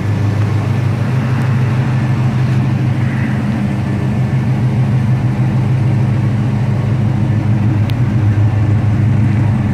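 1984 GMC short-bed pickup's engine running steadily at low revs as the truck rolls slowly past.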